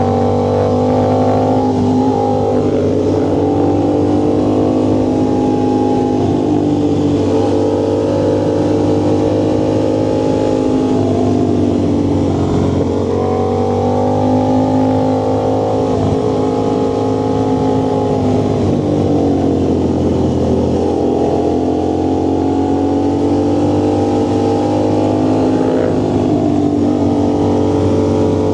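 Vehicle engine and exhaust running under way at a steady cruise. Its pitch sags a little before halfway and again about three-quarters through, then climbs back as it pulls again.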